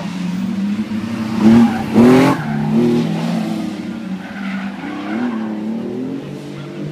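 Rally car engine revving hard as the car slides sideways through a corner, with two sharp rises in revs about a second and a half and two seconds in. After that it runs on at lower, wavering revs.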